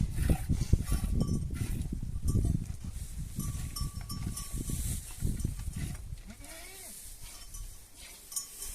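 Goats bleating, with a faint bell-like tone sounding a few times, over low rumbling noise that fades in the second half.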